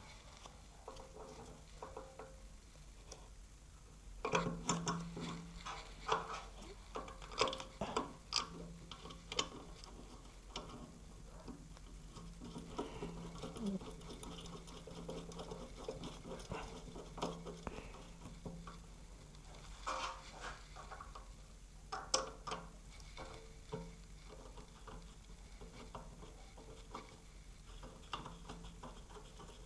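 Small metal clicks, taps and scrapes of parts being handled while the oil pump is fitted into the open crankcase of a 1944 Briggs & Stratton Model B engine. They come in two bunches, about four seconds in and again around twenty seconds in.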